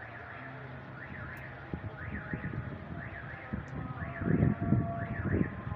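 A car alarm sounds with a repeating rising-and-falling warble. Irregular low rumbling bursts, loudest about two-thirds of the way in, come in over it.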